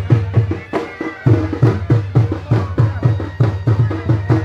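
Traditional folk drums played in a fast, steady rhythm of deep beats, about four a second, with a short break about a second in before the drumming picks up again.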